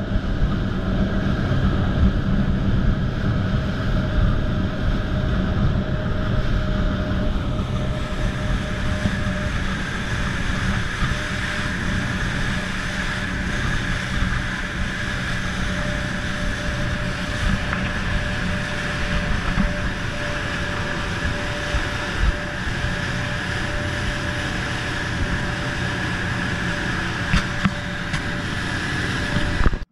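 Outboard motor of a center-console boat running at speed: a steady low drone with a steady whine over it, mixed with the rush of wind and water past the hull. A few short knocks come near the end.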